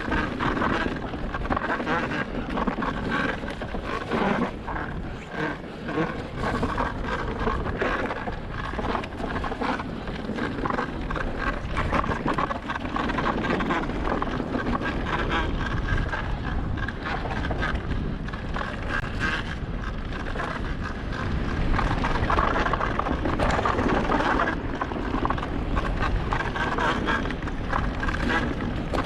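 Electric mountain bike riding down a rough trail: tyres rolling over the ground and the bike clattering and rattling over bumps in a steady stream of small knocks, with wind buffeting the microphone.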